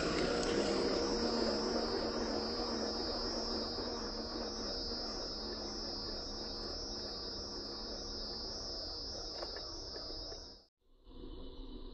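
Insects trilling in a steady, high, pulsing tone over the running noise of an RC truck's small electric motor and metal drivetrain. The running noise fades as the truck drives off over dry dirt. The sound cuts off abruptly about a second before the end, and fainter insect sound follows.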